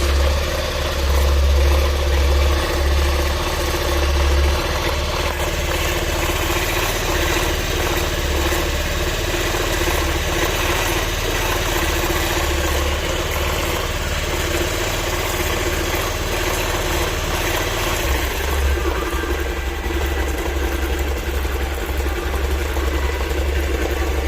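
Honda Activa scooter's single-cylinder engine idling steadily just after starting, with an abnormal noise that the owner suspects comes from the clutch.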